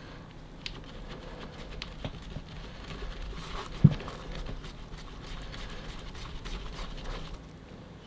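Wooden stirring stick mixing two-part epoxy resin with its hardener in a plastic measuring cup: irregular clicking and tapping of the stick against the cup, with one louder knock just before four seconds in.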